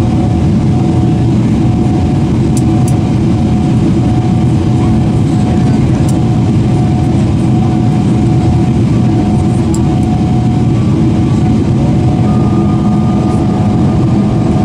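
Steady cabin noise inside a Boeing 777-300ER on its night approach: the GE90 engines and the rush of air past the fuselage as heard from a window seat, with a steady hum. A second, higher tone comes in near the end.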